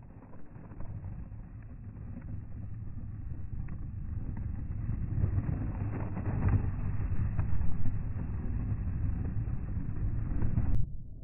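Low road and engine rumble heard from inside a moving vehicle as tractor-trailer trucks run alongside, growing louder over several seconds and cutting off suddenly near the end.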